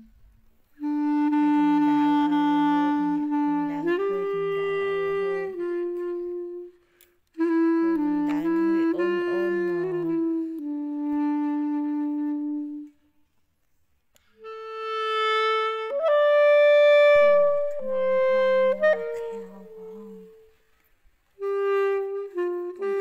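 Background music: a slow melody of long held notes on a reedy wind instrument over a lower accompanying line, in phrases broken by short pauses.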